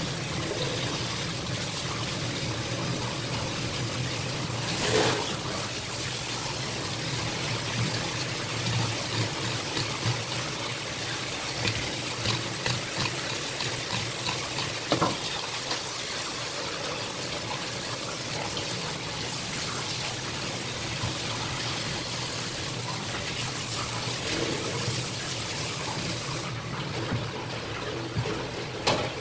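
Kitchen spray faucet running a steady stream of tap water onto a red sea bream fillet and into a plastic tub while it is rinsed, with a few sharp knocks. The hiss of the water thins out near the end.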